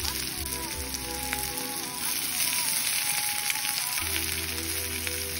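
Sliced onions sizzling steadily in hot coconut oil in a metal kadai, with background music playing underneath.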